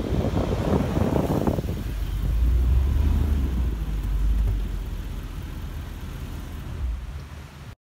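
Wind buffeting the microphone, then the low rumble of a 2012 Range Rover Sport Autobiography driving up on beach sand and pulling to a stop alongside. The rumble fades away after it stops, and the sound cuts out briefly near the end.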